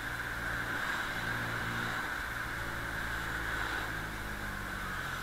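Engine and road noise of an open-sided passenger vehicle driving through town, heard through an action camera's sealed waterproof case: a steady low engine hum under a band of hiss.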